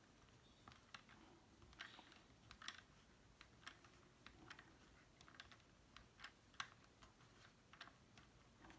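Faint, irregular small clicks, about one or two a second, as a Torx screwdriver works a tight screw out of the plastic housing of a BMW iDrive controller.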